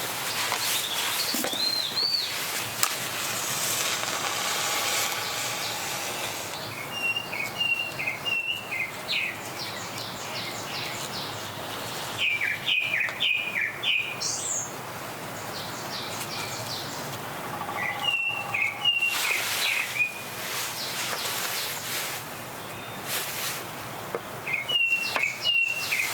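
Small birds calling, each call a short burst of several quick chirps that comes again about every five or six seconds, over a steady hiss of wind in the trees. A few sharp clicks sound in between.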